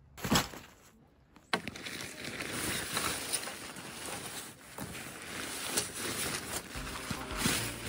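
Nylon tent fabric rustling and crinkling as the tent is pulled out of its bag and shaken loose, starting about a second and a half in and running on as a continuous, irregular rustle.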